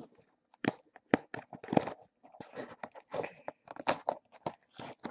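Cardboard figure box being handled and opened close to the microphone: irregular clicks, scrapes and crinkles.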